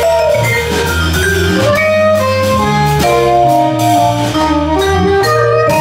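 Live jazz quartet playing a jazz waltz: soprano saxophone melody over vibraphone, bass and drum kit.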